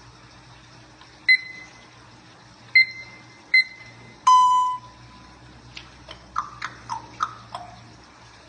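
African grey parrot mimicking electronic beeps: three short beeps at the same pitch, then a longer, lower beep, followed by a run of about five short whistles that each drop in pitch.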